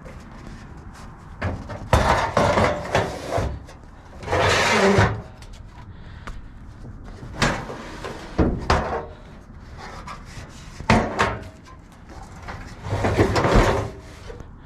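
Door jambs and other debris being dragged and shifted inside a dumpster: scraping and knocking in several irregular bursts, the longest about four seconds in and again near the end.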